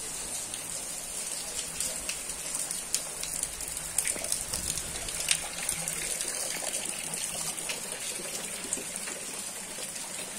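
Steady rain falling on a tiled patio and garden, an even hiss with scattered sharper drop impacts, a few louder ones in the middle.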